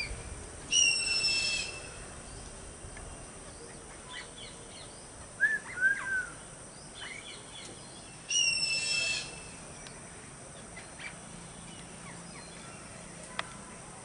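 Parrots calling: two loud, harsh calls of about a second each, one near the start and one about eight seconds in, with a few short chirps between them.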